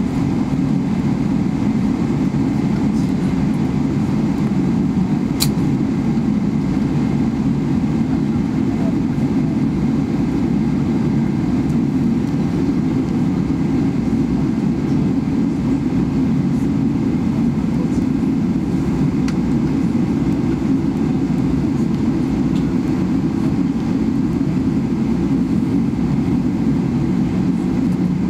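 Steady low rumble of a Boeing 777-300ER airliner with its engines running, even throughout, with one sharp click about five seconds in.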